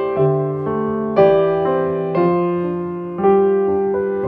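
Background piano music: gentle notes and chords struck one after another, each dying away before the next.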